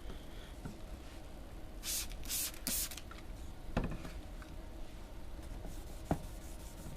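Hand trigger spray bottle of water squirting three times in quick succession onto the headlight lens to wet it for wet sanding, followed later by two light knocks.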